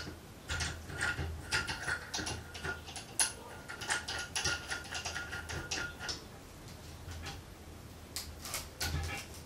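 Brass regulator nut being threaded by hand onto an acetylene cylinder valve: a run of small metallic clicks and rattles from the threads and fittings. About eight seconds in a wrench goes onto the nut with a few more metal clinks.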